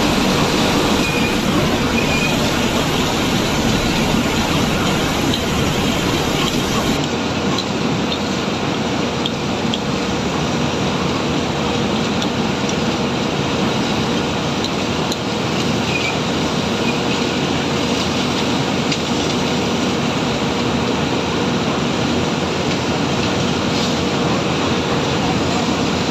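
Excavator's diesel engine running steadily with the rumble of its hydraulics working, a loud, unbroken machine noise with a faint steady hum.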